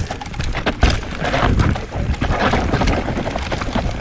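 Wind buffeting the microphone over the crunch and rattle of a bike rolling across loose, dry dirt, with many small knocks throughout.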